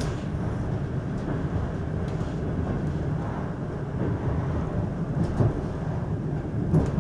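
Steady low rumble of a railway passenger carriage rolling on the rails, heard from inside the bar car, with a couple of short sharp knocks near the end.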